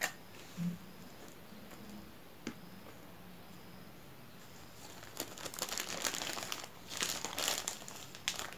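Thin plastic bag crinkling in two stretches, from about five seconds in until near the end, as a hand rummages inside it for strands of sai mai (Thai cotton candy). It is preceded by one sharp click at the very start and a few faint taps.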